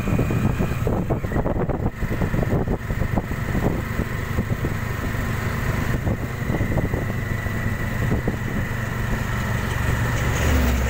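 A small motor vehicle's engine running steadily as it drives along the road, with a thin steady whine and frequent rattles and knocks from the body over the road surface.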